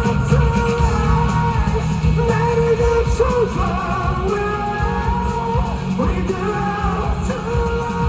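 A male vocalist singing live with an amplified band: long held notes with vibrato over steady drums and bass.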